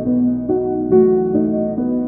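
Soft instrumental background music: a slow melody of single notes, each ringing on, about two notes a second.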